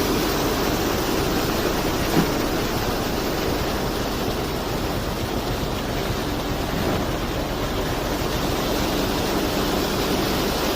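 Concrete truck mixer running with a steady rushing noise, as concrete pours from the mixer, and a single short knock about two seconds in.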